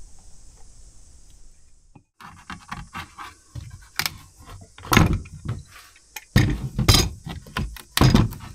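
Steel F-clamps with wooden handles being unscrewed and lifted off a glued wooden oar blade on a wooden bench: a run of metallic clanks, rattles and scrapes, with the loudest knocks in the second half. It starts abruptly about two seconds in, after a steady faint high hiss.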